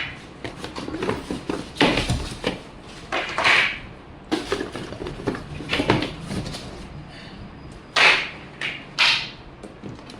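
Firecracker packs in paper and plastic wrapping being handled: irregular rustling and dull knocks as they are picked up and set down, every second or two.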